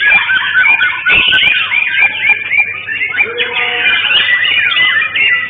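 White-rumped shamas (murai batu) singing over one another in a dense, continuous chorus of fast whistles, trills and sliding notes, with a few low thuds about a second in.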